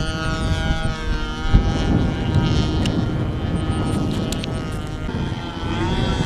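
Remote-controlled model airplane engine running with a steady buzzing note that sags slightly, then climbs in pitch near the end as the throttle opens, over a heavy rumble of wind on the microphone.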